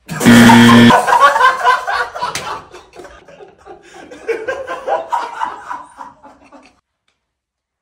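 Canned audience laughter, a crowd laughing loudly, which tapers off and stops suddenly about a second before the end. It opens with a short, loud steady tone lasting under a second.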